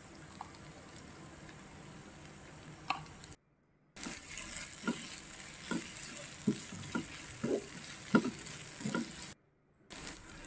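Chili and shallot spice paste sizzling in a nonstick frying pan while a wooden spatula stirs it, with a string of short scrapes and knocks against the pan in the second half. The sound drops out briefly twice.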